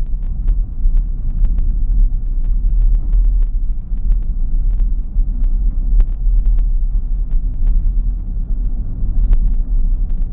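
Steady low rumble of a car driving, with scattered brief clicks and ticks over it.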